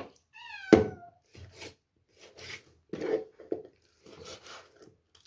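Kitchen knife sawing and scraping through raw chicken on a wooden cutting board in short repeated strokes, with a sharp knock of the blade on the board just before a second in. A cat meows once, briefly, near the start.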